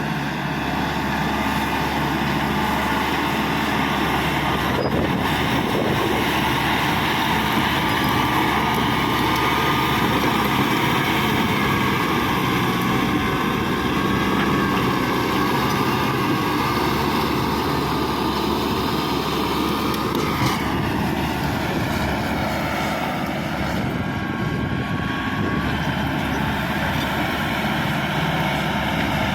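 Caterpillar D5K XL bulldozer's diesel engine running steadily as the dozer works. The engine note sags about two-thirds of the way through and partly recovers. Two sharp knocks are heard, one near the start and one just before the dip.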